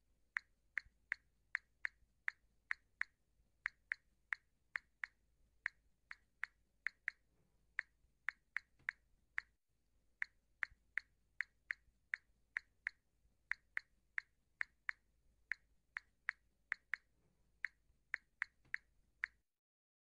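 Smartphone keypad tones while texting: a short, high blip for each key tap, about two to three a second in an uneven typing rhythm with brief pauses, stopping just before the end.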